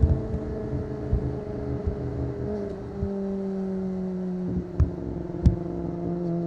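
Kawasaki ZX-25R's 250 cc inline-four, breathing through an Akrapovic exhaust, heard from on board the moving bike, its engine note falling slowly and steadily. There are a few short thumps near the end.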